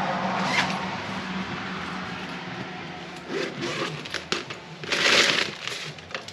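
Packaging being handled: a shipping bag rustling and crinkling as it is opened, with irregular louder crackles about three to four seconds in and again around five seconds in.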